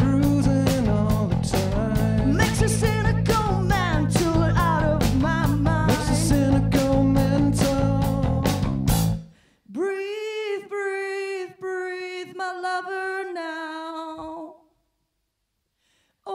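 Live rock band playing full-out with drums, cymbals, bass and electric guitars, stopping abruptly about nine seconds in. A lone voice then carries on unaccompanied with a long held note for about five seconds before it stops too.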